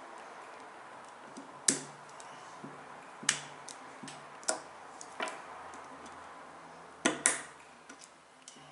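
Sharp, irregular clicks and taps of a screwdriver tip working against a Glock pistol slide, pressing in its spring-loaded pin so the new rear slide cover plate can be slid into place. A quick double click comes about seven seconds in.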